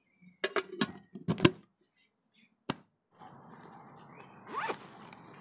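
Metal lid of a camping cook pot knocked and clinked into place in a few sharp strikes, one more a second later; then rustling of a nylon backpack as the pot is packed, with a short rising zip near the end.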